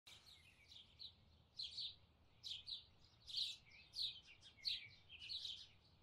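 Small songbirds chirping: clusters of short, high chirps repeated every half second or so.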